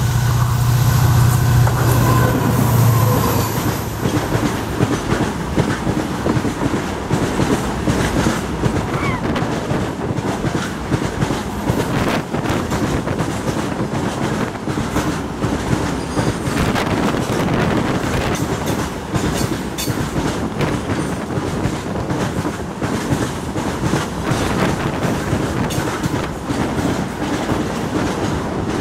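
WDG4D diesel locomotive passing close by at speed: its engine's steady low drone is loudest for the first few seconds, then fades under the dense clickety-clack of the RO-RO flat wagons' wheels over the rail joints, which carries on as the truck-laden wagons roll past.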